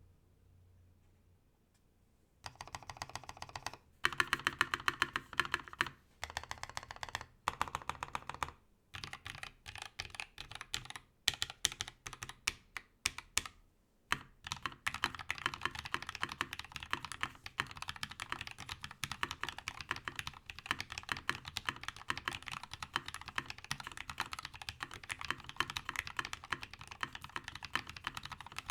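Typing on a Freebird60 mechanical keyboard with Tecsee Carrot linear switches, a brass plate without plate foam, and PBT keycaps. After about two seconds of quiet, keystrokes come in short bursts with brief pauses, then settle into continuous fast typing about halfway through.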